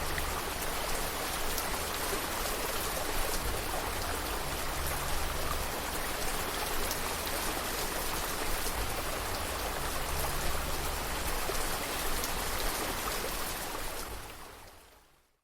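Steady rain falling, a dense hiss of drops with a low rumble underneath, fading out over the last second or so.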